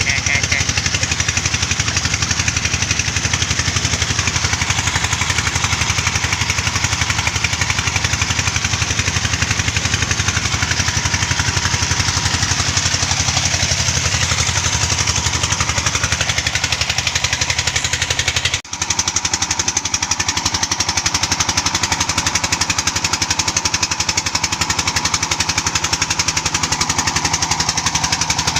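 The '48' engine of a land tin-mining rig running steadily and loudly, with a split-second break about two-thirds of the way through.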